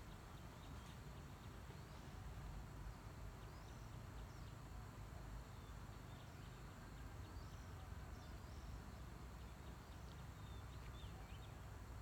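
Quiet outdoor ambience: a steady low rumble with many short, high chirps scattered throughout.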